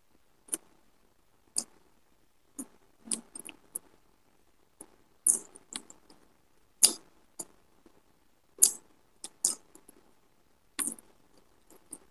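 Eating sounds: fried fish being chewed, heard as irregular short sharp smacks and clicks, roughly one a second, some much louder than others.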